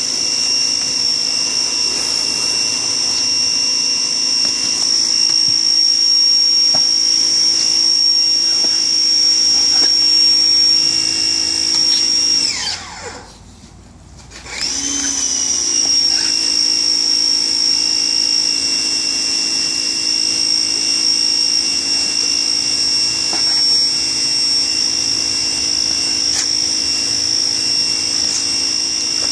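Electric fillet knife running with a steady high-pitched motor whine as it cuts fish. About halfway through it is switched off, its pitch falling as it winds down, and a couple of seconds later it starts up again and runs steadily.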